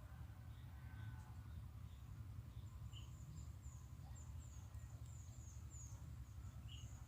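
Faint outdoor ambience: a steady low rumble with a run of short, high, falling chirps that starts about two and a half seconds in.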